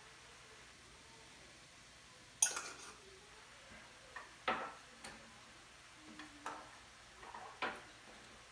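Spice jars and their lids being handled and set down on the countertop: a sharp click about two and a half seconds in, then a string of lighter knocks and clicks.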